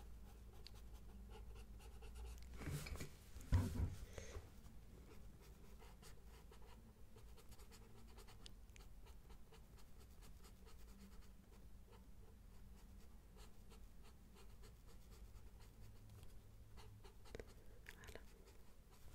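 Pencil scratching on sketchpad paper in many short, light strokes, close to the microphone. About three seconds in there is a louder bump and rustle of handling.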